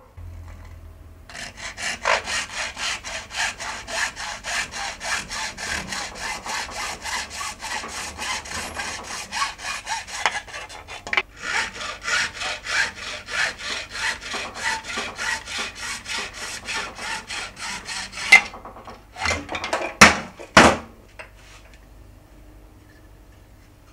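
Hand sawing through the plastic housing of an old DeWalt drill, in quick, even strokes with a brief pause partway through. A few sharp knocks follow as the sawing stops.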